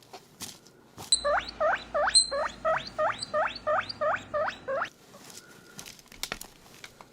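A silicone toy guinea pig, squeezed, gives a run of about a dozen guinea-pig squeaks, about three a second, each sweeping up in pitch, over a low hum. The run starts about a second in and stops after about four seconds. Soft scattered clicks come before and after it.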